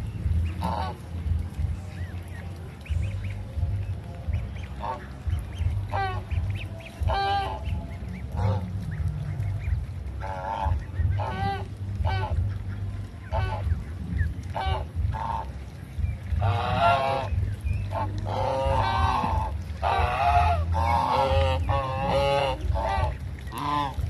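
Domestic geese honking: short, wavering calls, scattered at first and then coming one after another from about two-thirds of the way through, over a steady low rumble.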